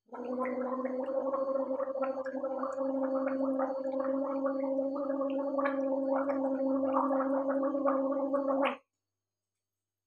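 A woman gargling warm salt water: a steady, single-pitched gurgling hum with rapid bubbling, held for almost nine seconds, then stopping abruptly.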